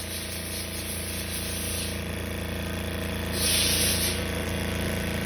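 Richpeace CNC automatic sewing machine running as it stitches a thick padded furniture panel: a steady machine hum. A high hiss fades out about two seconds in and comes back briefly at about three and a half seconds.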